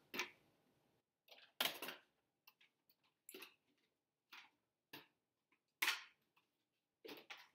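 Irregular short clicks and knocks as a food storage container is got out and handled, two of the knocks louder than the rest.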